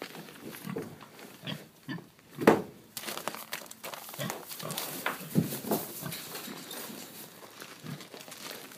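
Tamworth pigs grunting in short, low, irregular grunts, the loudest about two and a half seconds in.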